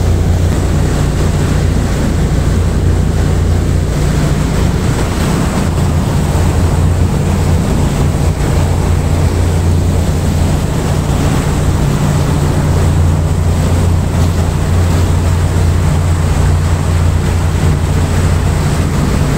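Fishing boat's engine running steadily under way, a low hum, with the wake churning behind and wind buffeting the microphone.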